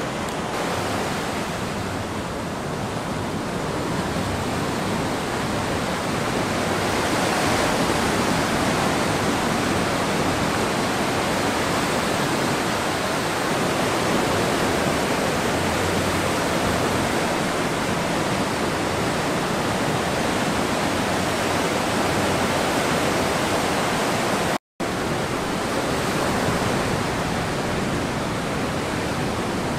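Ocean surf breaking and washing up the shore, a steady rush of white water with no separate crashes standing out. The sound cuts out to silence for an instant about 25 seconds in.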